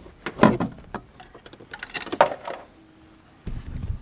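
Hands working the car's amplifier loose from under the carpet: irregular clicks, scrapes and rustles of metal, plastic and carpet, with a low rumble near the end.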